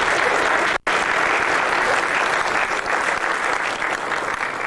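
Audience applauding, a dense steady clapping, broken by a sudden momentary dropout less than a second in.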